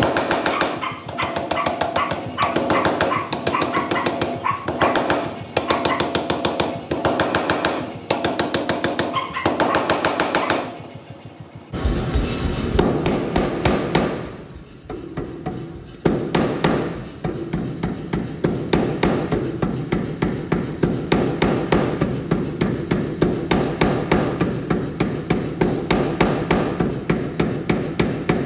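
Power hammer striking a glowing stainless-clad San Mai steel billet held in tongs, a rapid even run of blows. It comes in short bursts for the first ten seconds or so, then settles into a long unbroken run of blows from about halfway through.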